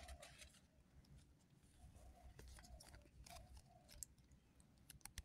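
Near silence with a few faint scattered clicks and light rustling from handling the instant coconut milk sachet over the mixing bowl.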